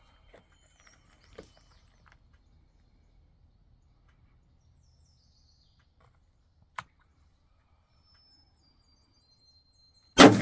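A single rifle shot near the end, very loud and sudden, with a long decaying echo. Before it there are faint bird chirps, a few small handling clicks and one sharp click about 7 seconds in.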